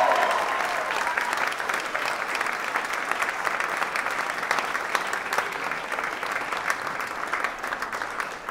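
Audience applauding: dense, steady clapping that slowly fades and dies away near the end.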